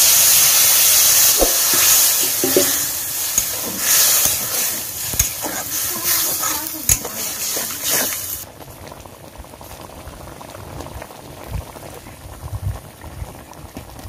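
Loud sizzling hiss of elephant apple pieces frying in a hot iron kadai, with a metal spatula scraping and knocking as it stirs. About eight seconds in the hiss cuts off sharply, leaving the quieter bubbling of the liquid curry with occasional spatula clicks.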